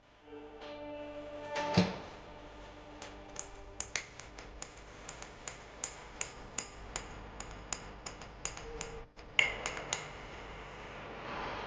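A run of light, sharp clicks and taps, a few a second.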